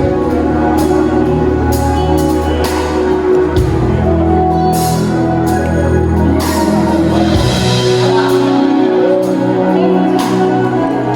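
Live band music during a sound check: sustained keyboard and bass notes under a changing bass line, with sharp strokes in the highs and some singing.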